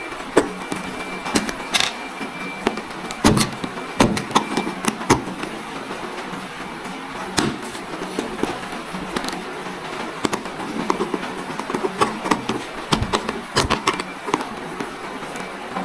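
Irregular clicks and knocks of plastic helmet parts being handled and pried apart, over a steady background hiss.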